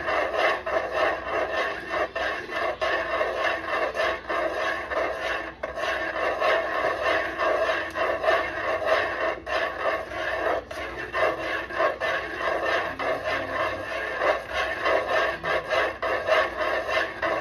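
A utensil scraping and rubbing against a cooking pot in quick, repeated strokes as a thick maja blanca mixture is stirred without a break.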